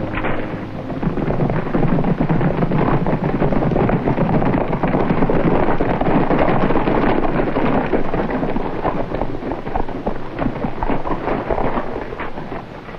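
Hoofbeats of a group of horses ridden into town on a dirt street: a dense rumble of many hooves that builds over the first couple of seconds and eases off near the end.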